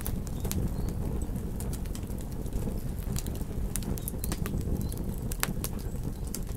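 Campfire crackling: irregular sharp pops and snaps over a steady low rumble of burning wood.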